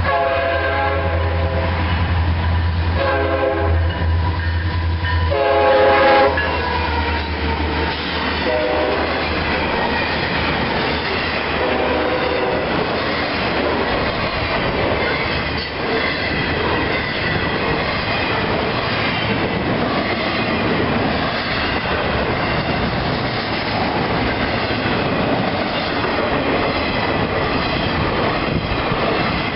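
Diesel freight train sounding its multi-chime horn in a series of blasts as it approaches the grade crossing, about five over the first twelve seconds, the fourth one short. The train then rolls through the crossing, and the steady noise of the passing cars carries on.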